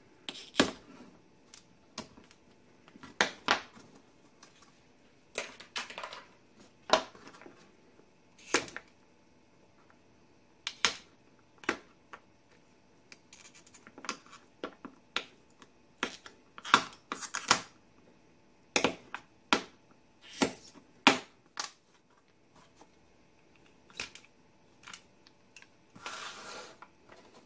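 Irregular sharp clicks, snaps and taps as small laser-cut pieces are pushed out of laser-cut plates by hand and the parts are set down on a wooden workbench. A brief scraping rustle comes near the end.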